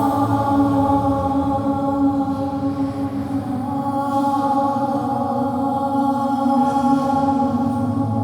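Voices chanting long, held notes over a steady low drone.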